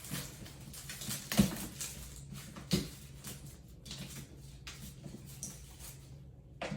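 Hard-shell suitcase being handled as someone tries to open it: scattered clicks and rustles, with two louder knocks about a second and a half and three seconds in.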